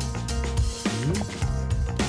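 Background music with a steady beat, bass and drums.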